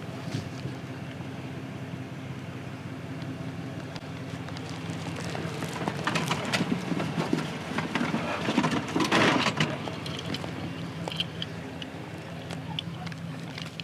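A steady low hum from an idling engine throughout. A louder stretch of rustling and scuffing noise comes about six to ten seconds in.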